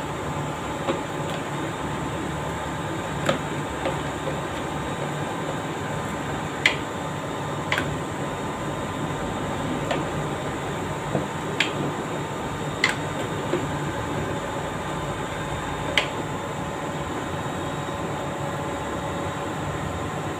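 Euro-brand electric chain hoist on test run, worked from its push-button pendant: a steady electric motor hum with about six sharp clicks spread through, as buttons are pressed and the contactors and brake switch.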